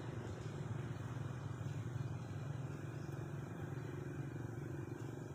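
Steady low rumble with a faint hum, unchanging throughout.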